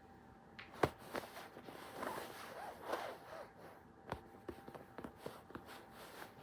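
Handling sounds: a series of sharp taps and clicks, the loudest just under a second in, with a short stretch of squeaky rubbing about halfway through.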